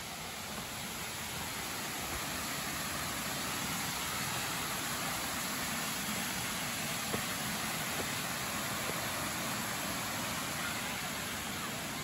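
Steady rush of the Kurşunlu waterfall, an even hiss of falling water that grows a little louder over the first few seconds and then holds.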